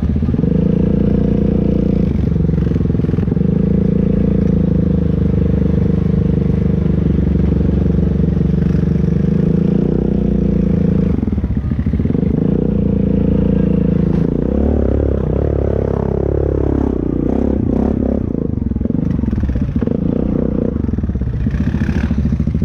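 ATV engine running at steady throttle, loud and close, with brief drops at about two seconds and at the middle. About two-thirds of the way through, the revs rise and fall several times.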